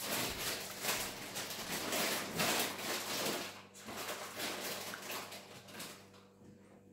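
Close-up slurping and chewing of ramen noodles: a dense wet noise for the first three seconds or so. Then softer clicks and scrapes as wooden chopsticks stir the noodles on a plate.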